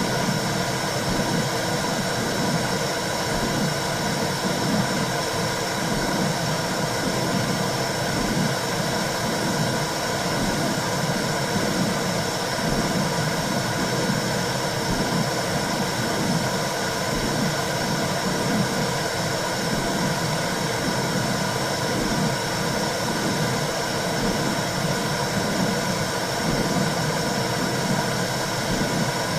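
Womb sound for calming a baby: a steady low whooshing noise with a rhythmic pulse about once a second.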